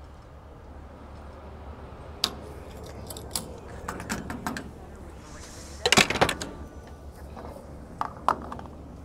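A bunch of keys clinking and jangling in several short bursts, the loudest cluster about six seconds in, as the dropped keys are picked up and handled. A steady low hum runs underneath.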